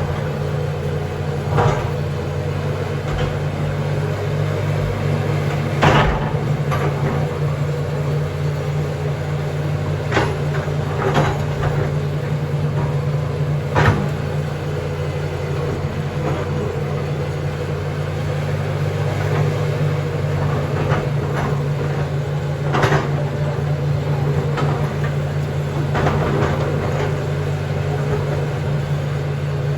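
John Deere backhoe's diesel engine running steadily, with a handful of sharp knocks at irregular intervals.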